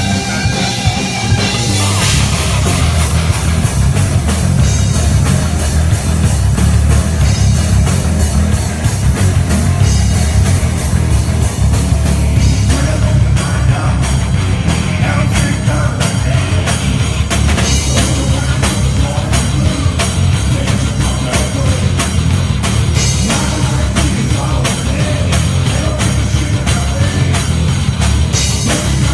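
Rock band playing live: electric guitar, bass guitar and drum kit together. The sound is loud and dense, with a heavy low end and steady drum hits.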